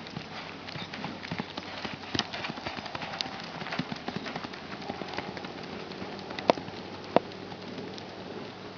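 Hoofbeats of a racking horse going at speed, a quick run of hoof strikes, with two sharp louder clicks about six and a half and seven seconds in.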